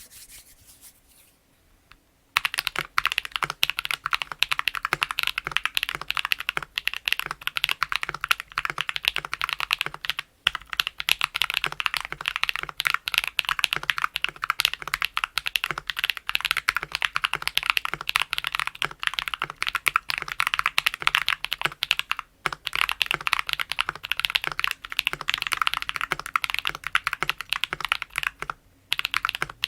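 Fast, continuous typing on a YC66 mechanical keyboard fitted with lubed Akko CS Ocean Blue linear switches and tape and PE foam mods: a dense patter of keystrokes. The typing starts about two seconds in and breaks off briefly three times.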